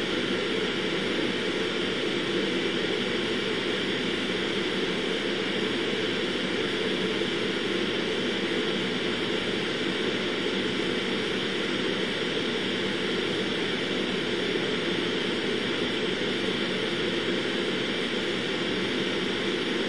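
Steady, even hiss and hum of background noise that does not change.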